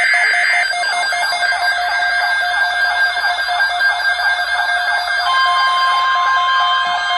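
Several weather alert radio alarms sounding at once, overlapping electronic beeping and rapid warbling sweeps, with another steady tone joining about five seconds in. The alarms signal an incoming severe thunderstorm watch alert.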